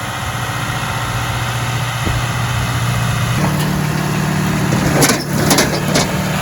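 Tractor engine running, with a steady low note that steps up to a higher pitch about halfway through as the engine speeds up. A few short rattles come near the end.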